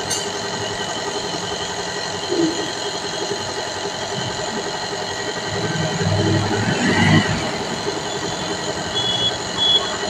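Electric nebulizer air compressor running with a steady hum, driving the mask's medicine cup during a nebulizer treatment.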